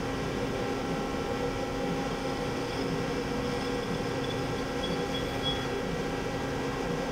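Steady mechanical hum with several held tones from an AWEA BL-2018FM CNC horizontal boring mill running idle, its drives and pumps on, as it readies a tool change; a faint high whine comes and goes midway.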